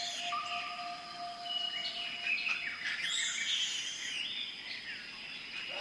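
Several birds calling at once: many overlapping chirps and short whistled notes.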